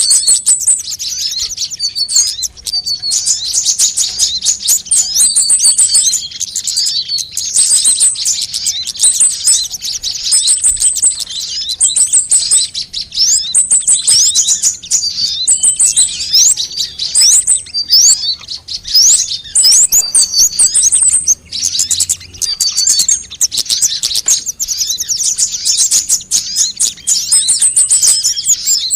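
Sunbird calls and song used as a bird lure: rapid, high-pitched chirps and trills, dense and continuous, with several birds calling over one another.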